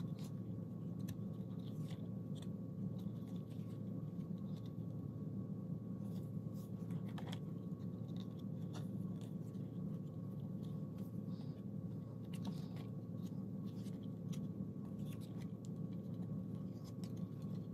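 Pages of a spiral-bound paper desk calendar being turned and handled: scattered soft paper clicks and rustles over a steady low background hum.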